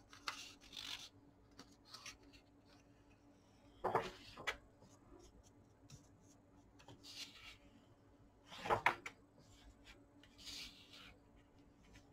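Pages of a large hardbound book being turned by hand, two faint paper swishes about five seconds apart, with lighter rubbing of hands on the paper between.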